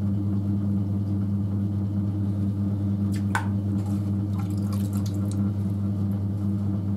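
Electric potter's wheel running with a steady motor hum, with wet squishing of hands and slip on the spinning clay as the rim of a tall vase is straightened. There is a light click about three seconds in.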